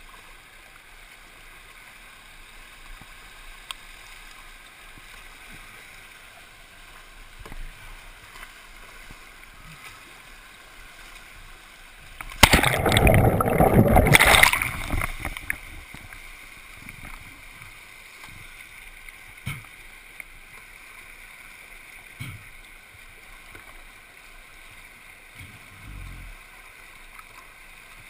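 Muddy floodwater rushing steadily through whitewater rapids, with a few faint knocks. About twelve seconds in, a loud churning rush of water lasting about three seconds as the microphone is plunged under the brown water, then the steady river rush returns.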